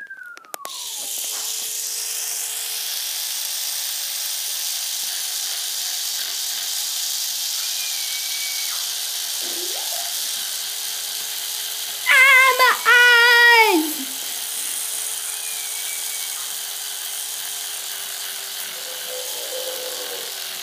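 Electric toothbrush starts just under a second in and runs with a steady hum, brushing a small toy. About twelve seconds in, a voice gives two loud, high, wavering calls over the hum.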